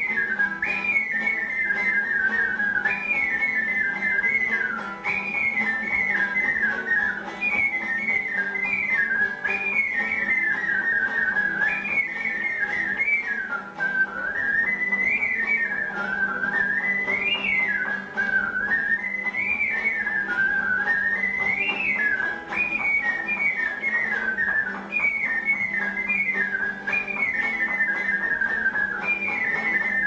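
Small ocarina playing a quick, twittering birdsong-like melody in short repeated phrases of trilled notes that mostly fall in steps, with a few rising sweeps midway. A classical guitar accompanies it underneath.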